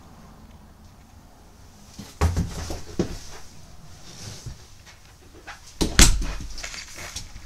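A few knocks and bumps, the loudest about six seconds in as the bathroom door of a travel trailer is moved, with handling noise between them.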